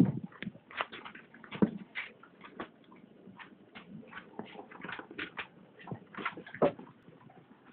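An Airedale terrier busy with a new toy: a run of irregular clicks, taps and knocks, with louder thumps at the start, about a second and a half in, and near the end.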